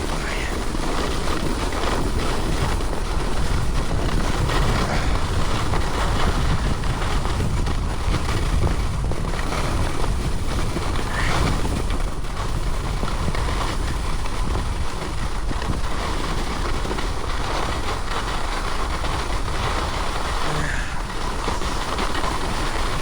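Steady rush of wind buffeting the microphone with skis sliding over snow on a straight downhill run.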